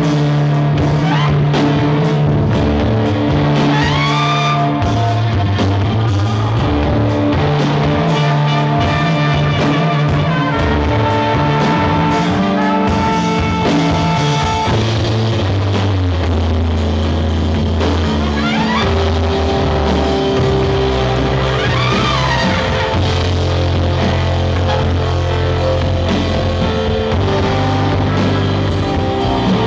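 A live rock band playing with trumpet, electric bass and drum kit. Long low bass notes are held under sustained tones and a few sliding pitches above.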